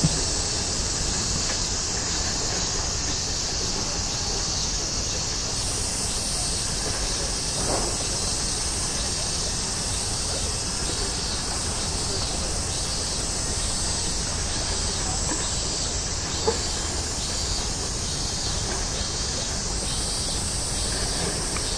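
Low, steady distant rumble of an Airbus A350-900's Rolls-Royce Trent XWB jet engines as it climbs away, with a constant high chirring of insects over it.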